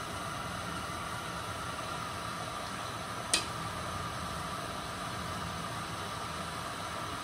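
Water at a rolling boil in a pan on a gas burner with spinach blanching in it, a steady hiss. A single sharp click about three seconds in.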